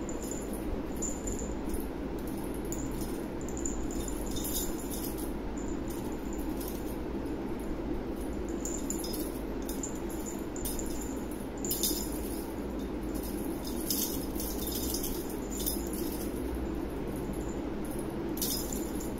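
Small bell jingling in short, irregular bursts as cats jump and swat at a feather wand toy, over a steady low hum.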